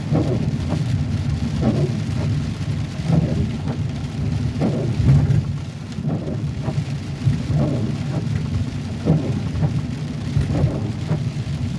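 Heavy rain beating on a moving car, heard from inside the cabin, over a steady low rumble of the car on a flooded road, with short uneven surges every half second or so.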